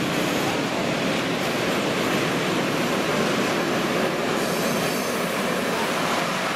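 A PKP Cargo freight train of open gondola wagons rolling past. It makes a steady rolling rumble of wheels on rail.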